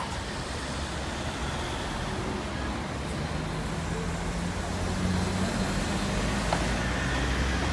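City street traffic: a steady wash of road noise with a vehicle's low engine hum that grows slightly louder from about three seconds in.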